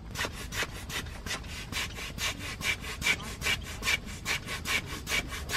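Small hand air pump worked in quick, even strokes, about four to five a second, each stroke a short rasping rush of air. It is inflating the pillow end of a self-inflating car-camping mattress, the part that does not fill by itself.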